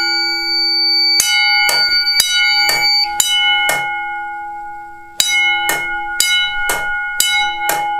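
Red wall-mounted fire alarm bell ringing in the temporal-three evacuation pattern: three half-second rings, a pause of about a second and a half, then three more. The gong keeps humming through the pauses. The pattern shows the Fire-Lite fire alarm panel is in alarm.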